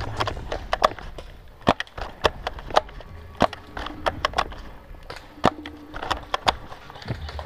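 Footsteps crunching through dry leaf litter and brush, with twigs snapping underfoot in irregular sharp cracks.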